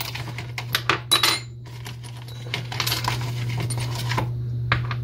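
Small metal parts of a 1956 Great Lakes Holiday "98" spincast reel clinking and clattering as they are taken from a plastic parts tray and set down on a tabletop. A quick run of light metallic clinks, some of them ringing briefly, comes in clusters, with two more near the end.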